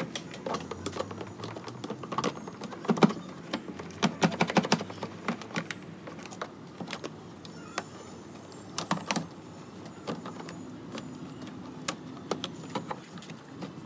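Hard plastic clicks and knocks in irregular clusters as a car's plastic cowl panel below the windscreen is handled, pressed and clipped into place.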